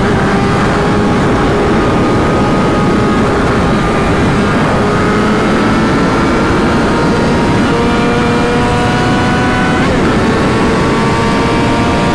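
Yamaha R6 sport bike's inline-four engine running under way, its pitch climbing slowly and stepping at a couple of gear changes, over heavy wind rush.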